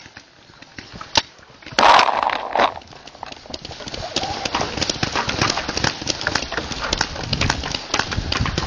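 Paintball markers firing: from about four seconds in, a rapid, irregular string of sharp pops. A brief loud burst comes near two seconds in.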